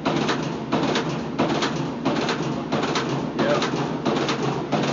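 2002 Whirlpool washing machine running with an uneven, lopey rhythm of swishing surges, about one and a half a second, over a steady hum, likened to a big-cam engine's idle.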